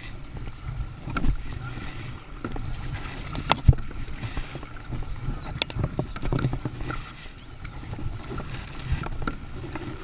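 Kayak paddling on a river: water splashing and rushing against the boat, with irregular sharp knocks from the paddle and hull, and wind rumbling on the action-camera microphone.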